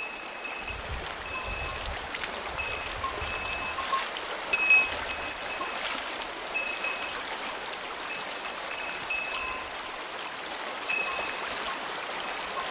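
Creek water flowing steadily, with short high ringing clinks recurring about once a second and one louder sharp knock about four and a half seconds in.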